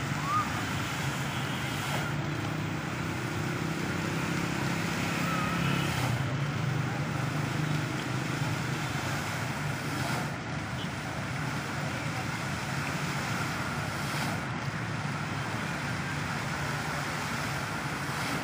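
Water jets of a dancing fountain splashing down into the pool, a steady rushing hiss, with faint voices of onlookers and a low background rumble.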